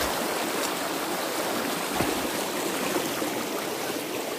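A shallow, rocky stream flowing and splashing over stones in a steady rush, with a brief dull thump about two seconds in.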